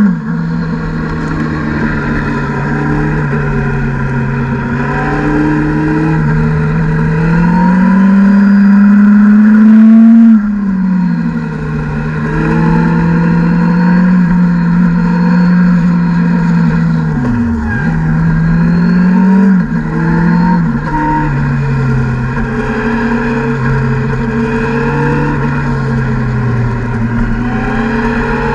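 Motorcycle engine running while riding. The revs climb for several seconds and drop sharply about ten seconds in, then dip and recover quickly twice between about 17 and 20 seconds in, as with gear changes and throttle through the bends.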